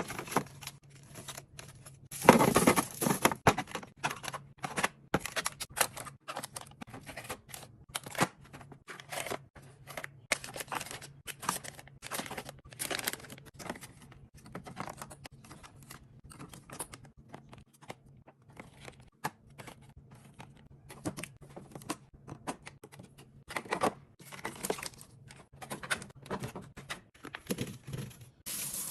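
Snack packaging being torn open and handled: a loud tear about two seconds in, then a long run of crinkles, rustles and light clicks as packets are sorted, over a faint steady low hum.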